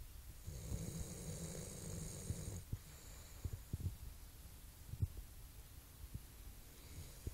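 Sleeping dog breathing heavily, with a light snore in its deep sleep: one long breath about half a second in, another starting near the end. A few soft low thumps fall between the breaths.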